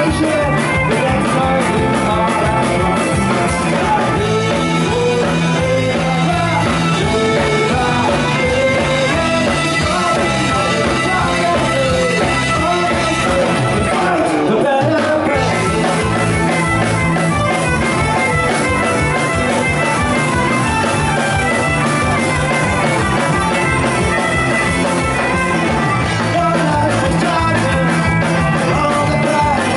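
Folk-punk band playing live: a male lead vocal over acoustic guitar, fiddle, bass guitar and drums, with a brief break in the low end about halfway through.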